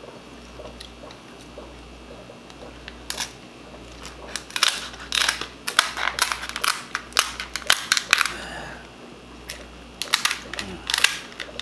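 Hard lobster-tail shell snapping and crackling in clusters of sharp clicks as it is cut with kitchen shears and pried apart by hand.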